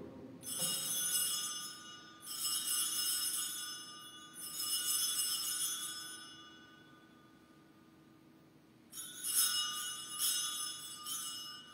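Altar bells rung at the consecration: three long shakes of a cluster of small bells, a pause of a couple of seconds, then three shorter shakes about a second apart, marking the elevation of the host.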